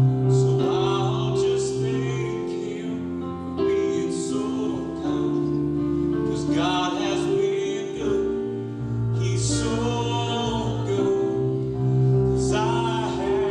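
Live gospel worship music: sustained keyboard chords under a man's amplified singing voice, with melodic vocal runs between sung lines.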